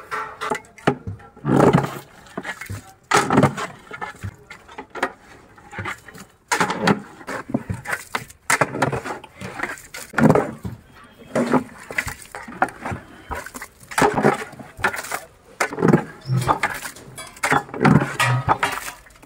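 Long metal spatula stirring raw chicken in spice marinade inside a large metal cooking pot. Each stroke scrapes against the pot with a wet churning of the meat, coming every one to two seconds.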